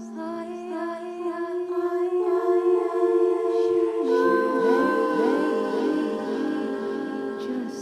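Layered wordless voices singing and humming in sustained overlapping tones, with gliding pitches from about halfway in, forming an ethereal a cappella drone.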